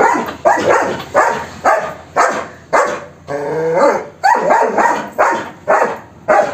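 A dog barking loudly and repeatedly, about two barks a second, with one longer, drawn-out bark a little past the middle.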